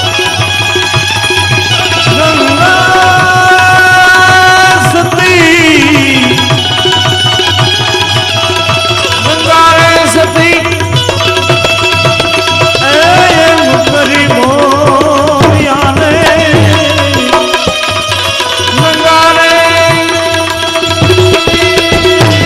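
Instrumental passage of Gujarati santvani folk music: a tabla keeps a steady rhythm under held melody notes, some wavering in pitch.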